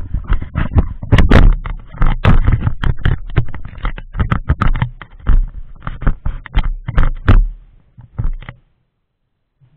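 Close handling noise: a rapid, irregular run of knocks, clicks and scrapes right at the microphone, as of hands fiddling with the camera mount and things on the dashboard. It cuts off suddenly near the end.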